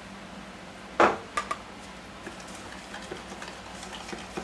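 A sharp knock about a second in, followed by light clicks and scrapes of a utensil stirring a marinade in a plastic tub.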